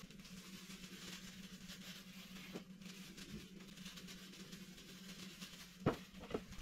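Quiet handling of stuffed eggplants against a steady low hum, with a single light knock near the end as an eggplant is set down on the ceramic plate.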